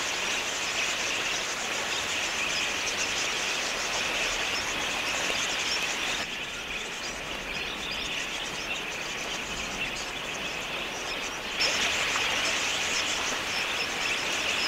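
A large flock of wild budgerigars chirping and chattering continuously, many birds calling at once. The sound changes abruptly about six seconds in and again near twelve seconds.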